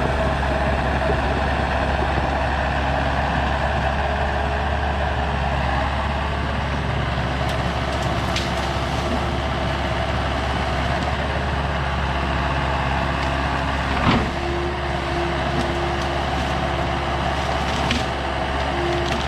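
Excavator's diesel engine running steadily under work, with a few sharp cracks, the loudest about fourteen seconds in.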